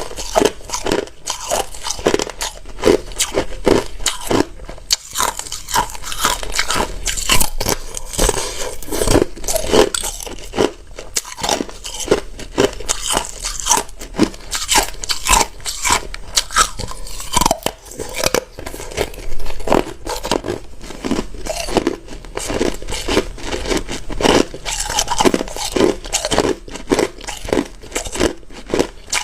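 Hard ice being bitten and chewed close to the microphone: a fast, continuous run of loud, sharp crunches and cracks.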